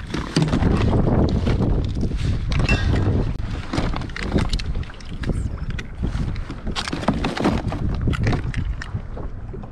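Wind buffeting a head-mounted action camera's microphone with a steady low rumble, over scattered knocks, clicks and rustles of gear being handled in a kayak's deck bag.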